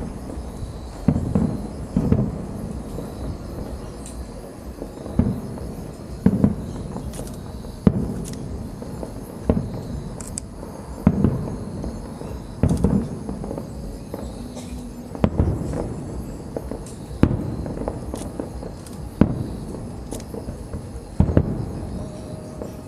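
Aerial fireworks shells bursting, about a dozen loud bangs spaced one to two seconds apart, each followed by a low rumbling echo.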